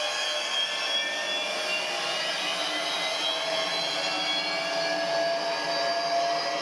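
Wall-mounted electric hand dryer blowing steadily: a loud, even rush of air over a motor whine.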